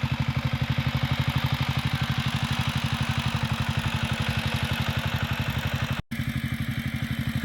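Tractor engine running steadily with an even chugging beat of about ten pulses a second. The sound drops out for an instant about six seconds in.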